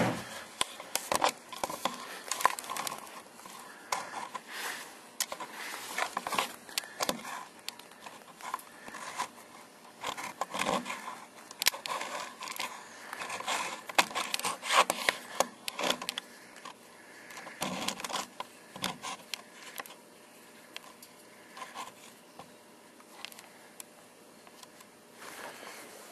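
Scattered clicks, knocks, scrapes and rustles of someone moving about and handling tools and objects, along with handling noise from the hand-held camera. The sounds are busiest for most of the stretch and die down to quieter rustling near the end.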